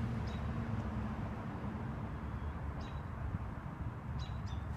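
Steady low outdoor rumble with a few short, high bird chirps over it.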